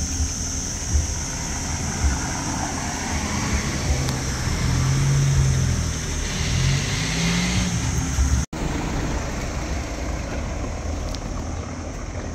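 Street traffic: a car passes by, its engine note rising and falling in the middle, over a steady high hiss.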